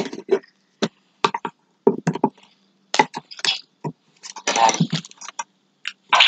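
Short clicks, knocks and clinks as a smartphone is handled and set into its clip-on holder, a run of separate taps with short gaps between them.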